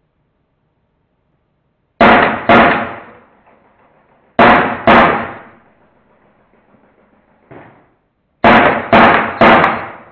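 Drozd Blackbird BB gun firing in quick groups of two, two and three loud shots, each about half a second apart, with a brief echo after each; a single fainter knock comes between the second and third groups.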